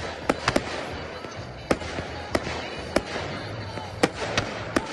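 Category F4 (professional) fireworks display: about nine sharp bangs of bursting shells at irregular intervals, over a steady noisy background of crackle.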